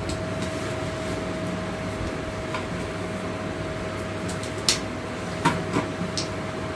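Steady room hum with a constant high tone, and a few faint clicks and taps in the second half.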